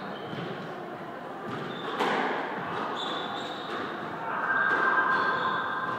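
Squash rally: the rubber ball smacks off rackets and the court walls with a few sharp strikes. From about halfway on, sports shoes squeak on the wooden floor.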